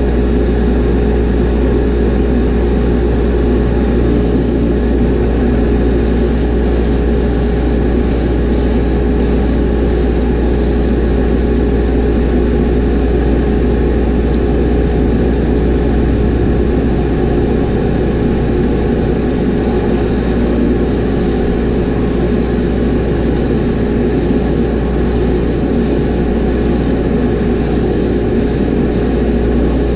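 Spray booth exhaust fan running with a steady drone and a fixed hum. Above it, an airbrush spraying chameleon paint hisses in runs of short pulses.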